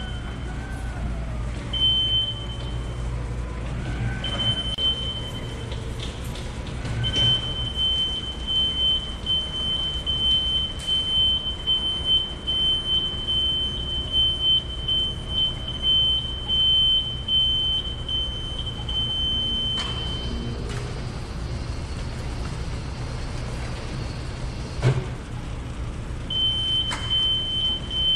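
Automated guided vehicle carrying a pallet, with a steady low hum under a high-pitched continuous warning tone that sounds in long stretches, stopping and restarting several times. A single sharp knock near the end.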